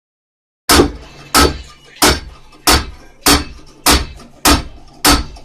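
Repeated heavy blows on a wooden closet being demolished, likely a hammer knocking apart nailed boards: eight sharp bangs at a steady pace of about three every two seconds, starting just under a second in.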